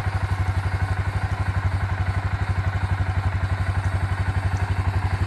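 Yamaha Kodiak ATV's single-cylinder four-stroke engine idling steadily, with an even beat of about a dozen pulses a second.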